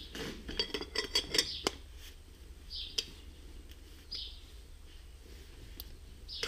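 Small metallic clicks and clinks of a tractor engine's steel oil centrifuge rotor housing being handled and turned onto its base: a quick run of clicks in the first second and a half, a single click about three seconds in, and a sharper one at the very end.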